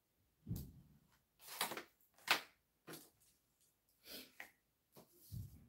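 A series of short scrapes, taps and knocks as a sheet of cardboard, a pen and a utility knife are handled on a wooden table, with a dull thump about half a second in and again near the end.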